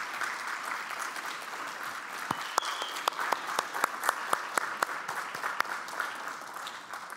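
Audience applauding, with a few louder individual claps standing out; the applause dies away near the end.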